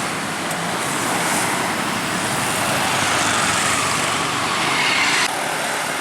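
Road traffic noise from a passing vehicle: steady tyre and engine noise, with a rising whine from about three seconds in that cuts off suddenly about five seconds in.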